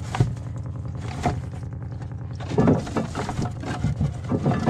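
A small boat's motor running steadily at a low, even pitch, with a few knocks and louder bursts over it.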